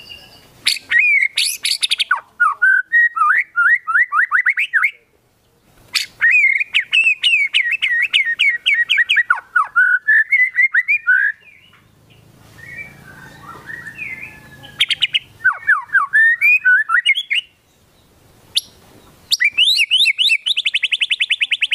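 White-rumped shama (murai batu) singing in bursts of fast, varied phrases of repeated whistled notes, with short pauses between them. Near the end it breaks into a very rapid, even rattling trill, the 'tembakan' rapid-fire phrase prized in shama song.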